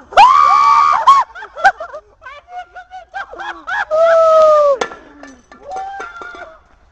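People shouting excitedly right after a firecracker blast, two long loud yells: one just after the start and one about four seconds in, with shorter shouts between.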